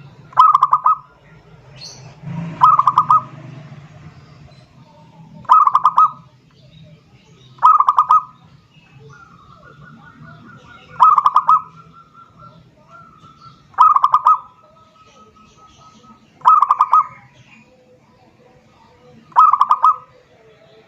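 Zebra dove (perkutut) calling: a short, rapid, staccato cooing phrase repeated about every two to three seconds, eight times, over a faint low hum.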